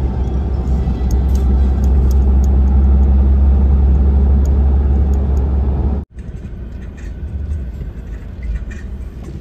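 Moving car's road and wind rumble, deep and steady, which cuts off abruptly about six seconds in. It gives way to quieter outdoor background with a few faint ticks.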